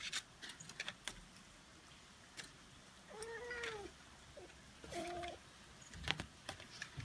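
Russian Blue kitten meowing twice: a drawn-out meow that rises and falls about three seconds in, then a short one about five seconds in, among a few sharp clicks and taps.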